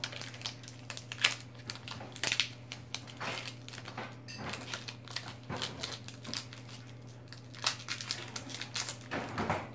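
Foil wrapper of an opened Pokémon booster pack crinkling and rustling in the hands, with irregular crackles throughout as the cards are taken out.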